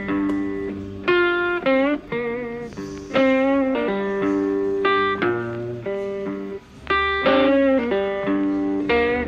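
Background music: a guitar plays a melody of plucked notes with wavering, bent pitches over low bass notes.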